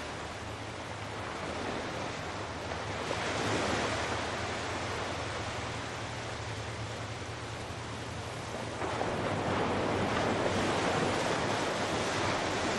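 Small sea waves breaking and washing in over a rocky, pebbled shore. The surf rises about three seconds in and again from about nine seconds in.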